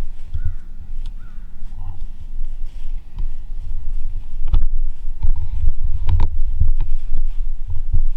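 Wind buffeting the microphone in uneven low gusts with a few knocks, and faint short bird calls now and then.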